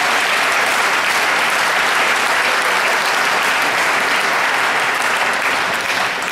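Spectators applauding steadily, easing slightly near the end.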